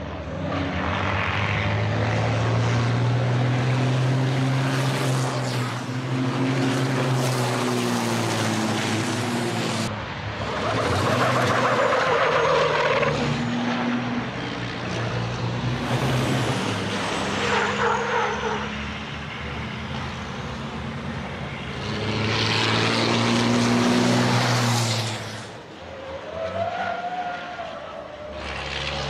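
Full-size racing trucks' diesel engines running hard as they lap a circuit. Several swell and fade as they pass one after another, and the engine pitch rises and falls with revving and gear changes.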